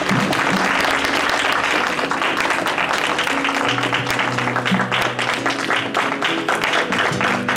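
Church congregation clapping and applauding while music plays underneath, with held low notes that build up about halfway through.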